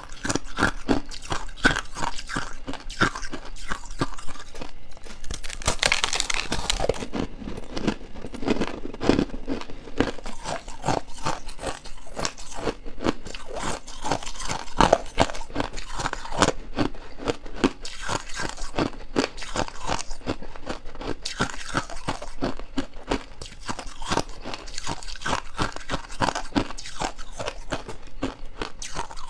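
Close-miked crunching and chewing of powdery frost ice: a dense, unbroken run of crisp crunches, with a louder, longer crunch about six seconds in.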